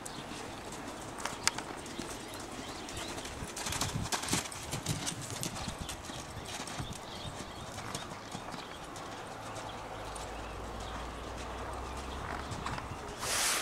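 Clydesdale mare's hoofbeats on arena sand at a lope, an uneven run of soft knocks. A short loud rush of noise comes near the end.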